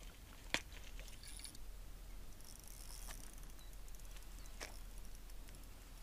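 Small handling noises from a clear plastic tackle box: a few sharp clicks, the loudest about half a second in, with light rattling and rustling of lures between them.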